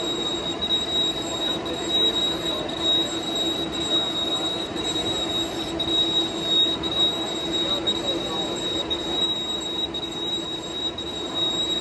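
Large metal lathe running, its big chuck spinning, with a steady high-pitched whine over a lower mechanical hum.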